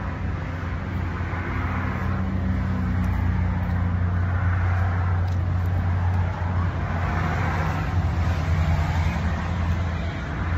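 A steady low mechanical drone, like an engine running, under a general outdoor hiss. It dips briefly about six seconds in and again near the end.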